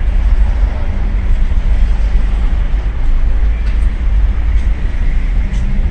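Audi RS4 B9 Avant's twin-turbo V6 idling: a loud, steady low exhaust rumble with no revving.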